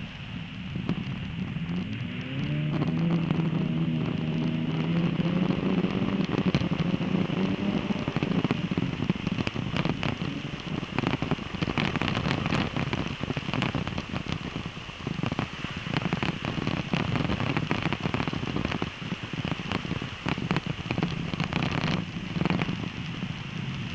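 Car engine revving up about two seconds in, its pitch rising and holding for several seconds before easing off, over a steady crackling hiss of studless winter tyres running on snow-covered ice.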